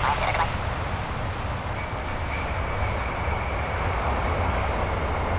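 Boeing 747 jetliner touching down and rolling out: a brief rough crackle as the wheels meet the runway, then a steady roar of its engines with a deep rumble. A faint thin whine joins about two seconds in.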